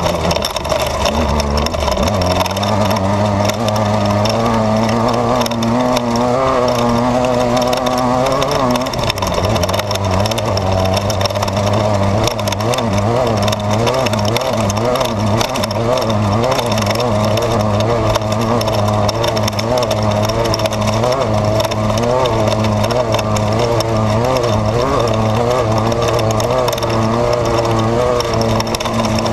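Desert race car's engine heard from inside the cabin, running hard at speed, its revs rising and falling constantly. The revs climb for a couple of seconds about six seconds in, then drop.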